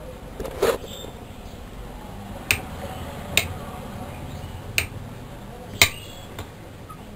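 A handful of sharp clicks and clinks at irregular intervals, the loudest about two-thirds of the way through, over a low steady background rumble.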